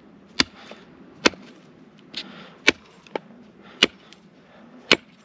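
Condor Lobo machete chopping a point onto a birch stick resting on a wooden stump: five sharp chops roughly a second apart, with one lighter tap between them.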